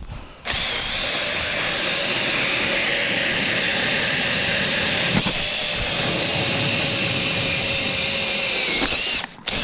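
Makita cordless drill turning an ice auger, boring a hole into the lake ice: a steady motor whine under the churn of the auger. It starts about half a second in, stops briefly near the end and starts again at once.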